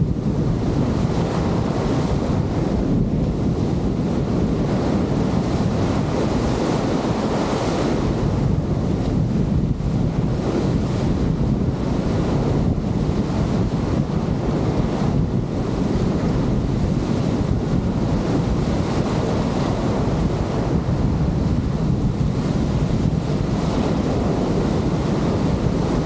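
Rough surf breaking and churning in foamy whitewater, a steady low rush of water, with heavy wind buffeting the microphone.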